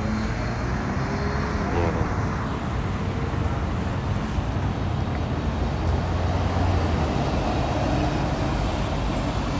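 City street traffic: cars and buses passing steadily, with a city bus running close by and its engine hum swelling about six to eight seconds in.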